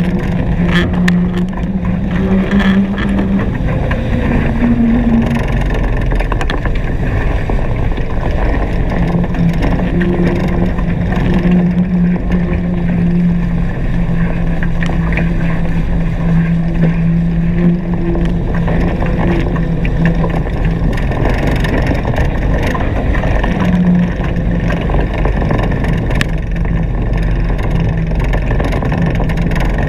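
Steady loud rush of water and wind from a Hobie Cat 16 catamaran sailing fast, with a low hum that fades in and out.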